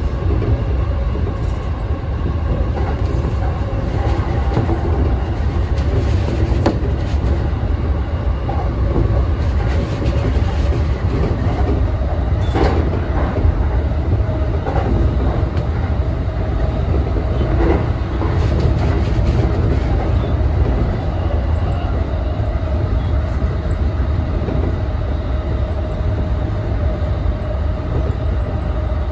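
Keihin-Tohoku line E233-1000 series electric commuter train running at speed, heard from inside the leading car: a steady low rumble of wheels on rail with a steady hum over it. A few sharp clicks as the wheels cross rail joints and points, the clearest about twelve and eighteen seconds in.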